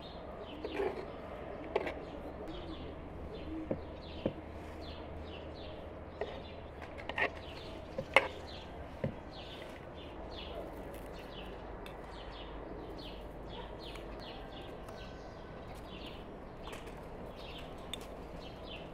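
Small birds chirping over and over, with a few sharp knocks scattered among them (the loudest about eight seconds in) and a low steady hum underneath.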